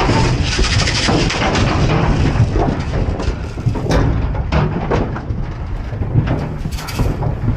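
Rattle paddle shaken to drive calves, with the cattle shuffling and knocking against the metal walls and gates of a livestock trailer: a busy clatter of sharp knocks and rattles, densest in the first couple of seconds, then thinning to scattered bangs.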